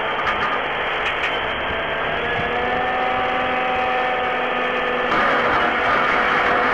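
Heavy tipper truck's engine running as the truck reverses, with a steady whine that rises slightly in pitch. About five seconds in, a louder rush of noise joins it.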